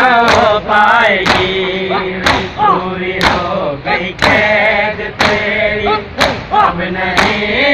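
Men beating their chests in unison in Shia matam, a sharp slap about once a second, steady throughout. Under the slaps a group of voices chants a noha, a mourning lament.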